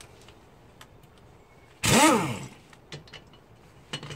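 Handheld electric power wrench spinning a wheel nut in one short burst about two seconds in, its motor pitch rising and then falling as it speeds up and stops. A few light clicks of the socket and nuts follow near the end.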